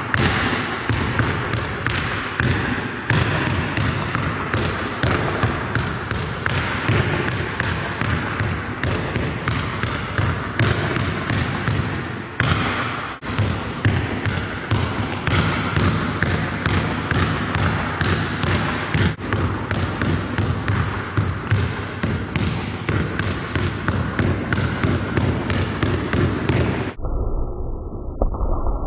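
Several basketballs dribbled at once: a dense, continuous patter of overlapping bounces.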